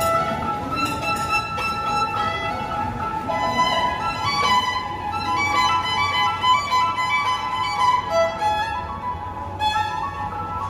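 Solo violin playing a melody in a tiled subway passage: a long held note at first, then quicker-moving notes.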